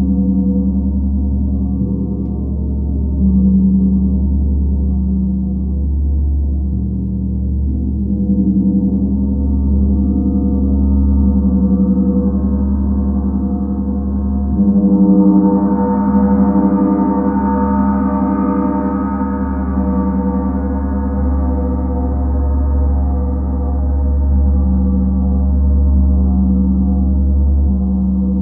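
Planetary gongs ringing in a long, sustained drone, the low tones pulsing slowly. About halfway through the gong swells louder and brighter, then settles back.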